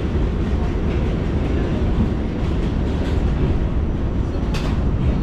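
New York City subway car running along an elevated track, heard from inside the car as a steady low rumble. A brief sharp click comes about four and a half seconds in.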